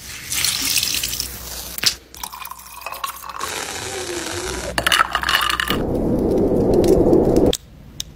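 A string of separate wet, squishy sounds, cut one after another: a soapy, foam-soaked bristle brush being squeezed and rubbed, and a fingertip pressing into whipped cream. The sound changes abruptly every second or two.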